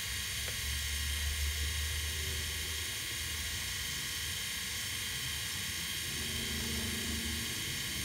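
A steady low hum with a constant high hiss, like a machine or fan running, swelling a little about a second in.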